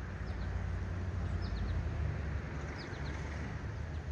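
Small songbird giving short, high chirps, each falling in pitch, in little groups every second or so, over a steady low rumble.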